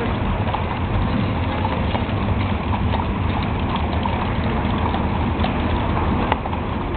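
Hooves of a group of horses clip-clopping as riders and covered wagons pass, a jumble of irregular hoof strikes over a steady low rumble. A single sharp click about six seconds in.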